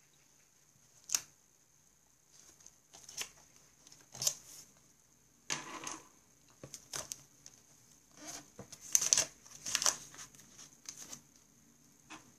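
Paper and books being handled on a desk: a sharp click about a second in, then irregular rustles and knocks as a tabbed book or pad is lifted and shifted, loudest about nine to ten seconds in. A faint steady high whine runs underneath.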